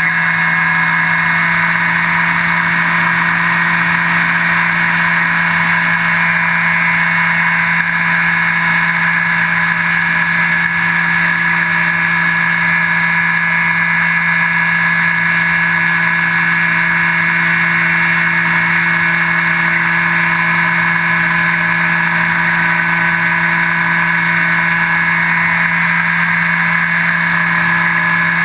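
Electric motor and pusher propeller of a Skywalker 1680 FPV plane running at a steady cruise throttle, a constant droning whine with wind rush, heard from a camera mounted on the airframe.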